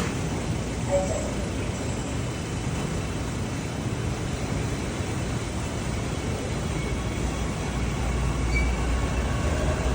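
Seoul subway train running: a steady rumble and rail noise, with the low rumble growing louder near the end.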